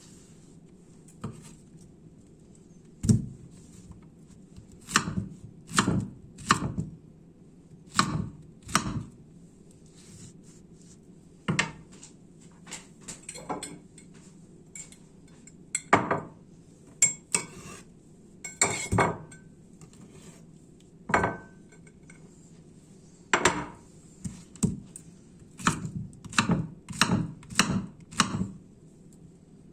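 Kitchen utensils and dishes being handled: irregular knocks and clinks of knife, cutlery and dishes on a counter, a couple of dozen separate strikes with short pauses between.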